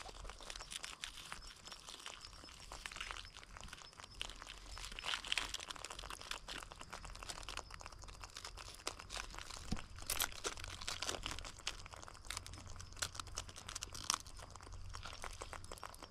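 Close handling of a live mud crab on gravel and shell grit while its claws are being tied with cord: a dense, irregular run of scratches, crunches and clicks, with a few sharper ones a little past halfway.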